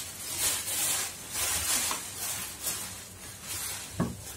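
Thin plastic wrapping crinkling and rustling in repeated bursts as it is pulled off a table lamp, with one sharp tap about four seconds in.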